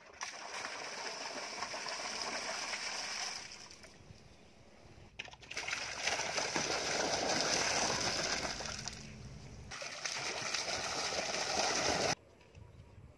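Water poured from a container, splashing into the standing water of a part-filled pool. It comes in three long pours, and the last one cuts off abruptly.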